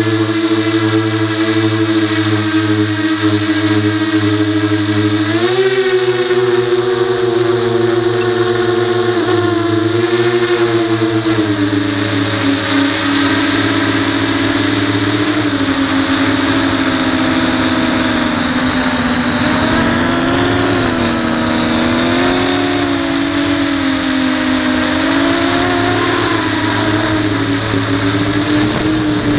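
Brushless motors and 5-inch propellers of an FPV racing quadcopter (Brotherhobby Returner R5 motors, HQProp 5" props) whining, heard through the onboard camera's microphone. The pitch jumps up about five seconds in as the throttle is opened to climb, then wavers up and down with the throttle as it flies.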